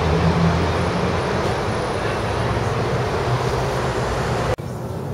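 Street traffic noise: a steady wash of vehicles with a low engine rumble, which cuts off abruptly near the end to a quieter, steadier background.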